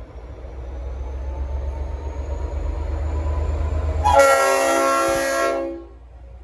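Diesel locomotive departing with a low rumble that builds for about four seconds, then one loud blast of a Leslie RS5T five-chime train horn, a full chord lasting about a second and a half that cuts off sharply.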